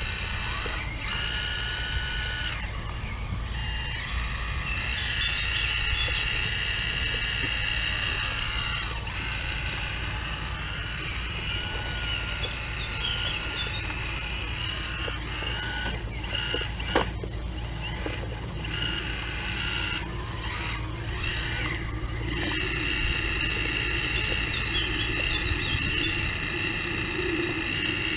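CAT 235 excavator working: a whine of motors and hydraulics with several high tones that shift and glide up and down as it moves, over a steady low hum. A single sharp click comes about 17 seconds in.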